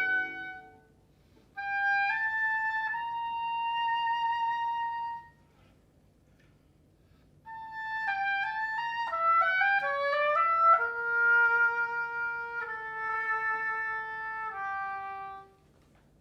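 A solo woodwind playing unaccompanied: a short sustained phrase, a pause of about two seconds, then a longer phrase with a quick run of notes in the middle that settles into held notes.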